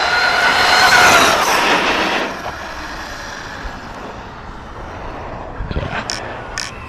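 Arrma Kraton 6S RC monster truck's brushless electric motor whining as the truck speeds past, loudest about a second in and then fading as it drives off. A few sharp knocks or clatters near the end.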